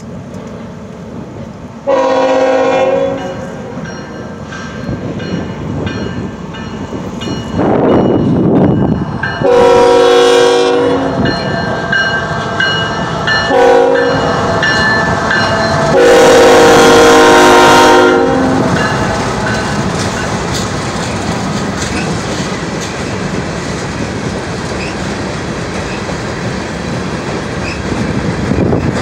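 A CSX diesel freight locomotive's multi-chime air horn sounds four blasts, long, long, short, long, the standard grade-crossing signal. The train then rolls past close by, its wheels clacking steadily over the trestle as the freight cars go by.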